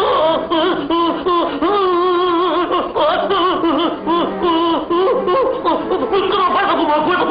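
Several people laughing uproariously together without a break, high giggling mixed with deeper belly laughs, on an old film soundtrack with a dull, thin sound.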